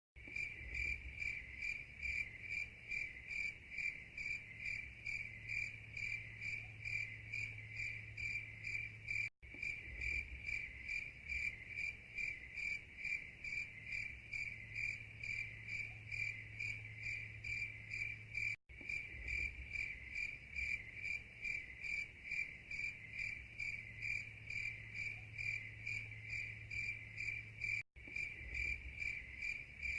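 Crickets chirping steadily in a regular, even pulse of about four chirps a second, with a brief break in the sound about every nine seconds.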